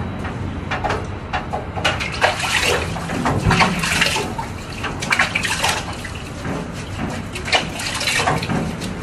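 Water splashing and sloshing in a utility sink as a wet dog is scrubbed and rinsed by hand, in uneven splashes.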